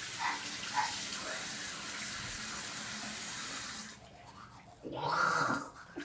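Bathroom sink tap running, shut off abruptly about four seconds in. A brief louder sound follows near the end.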